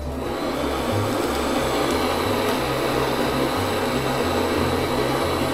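Kitchen butane torch flame searing goby skin: a loud, steady hiss of burning gas that stops abruptly just after the end.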